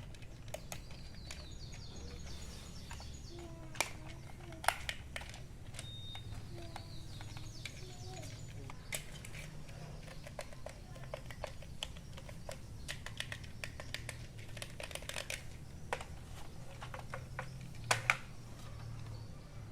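Scattered light clicks and taps of hands handling a plastic RC toy bulldozer and its packaging, the sharpest a few seconds in and a quick pair near the end, over a low steady hum with faint chirps.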